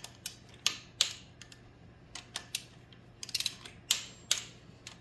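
A 3/8-inch-drive torque wrench ratcheting, with its socket clinking onto the flywheel bolts as they are snugged to a first pass of 15 ft-lb. The sound is irregular sharp metallic clicks, some single and some in quick clusters.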